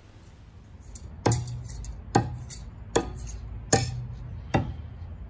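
Throwing knives thrown in quick succession striking wooden log-round targets: five sharp thunks, one about every 0.8 seconds.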